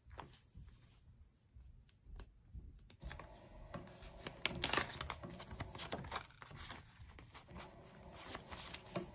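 Paper banknotes rustling and crinkling as a wad of bills is pulled from a clear plastic binder envelope and fanned through by hand. Faint at first, the rustling picks up about three seconds in.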